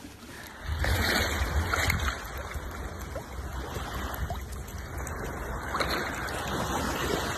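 Shallow sea water lapping and splashing around a swimming dachshund, over a steady low rumble, starting just under a second in.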